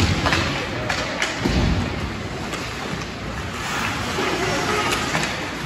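Ice hockey game in play: a steady hiss of skates on the ice and arena noise, broken by a few sharp clacks and a couple of dull thumps.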